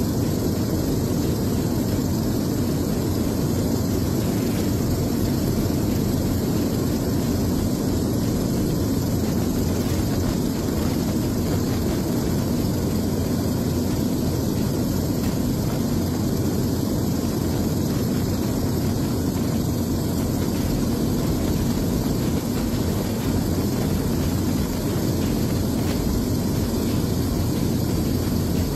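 Steady low rumble of a helicopter's engine and rotors, heard from on board.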